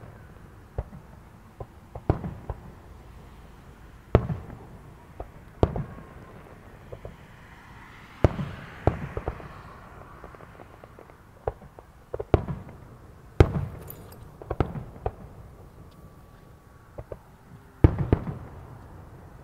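Aerial firework shells bursting in a display: about a dozen sharp booms at irregular gaps of up to a few seconds, each trailing off in a low rumble.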